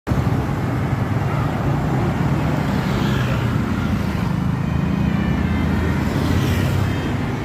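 A bus's diesel engine running with a steady low rumble amid road traffic, with a couple of brief swells of hiss as vehicles pass.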